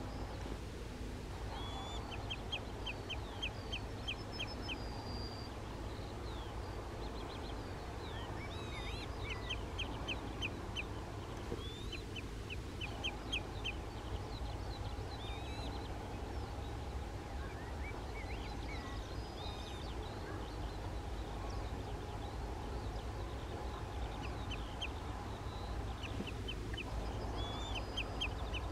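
Common redshank calling: runs of quick, short, high notes, six to eight at a time, repeated every few seconds, typical of an adult alarm-calling near its chick. A steady low rumble lies underneath.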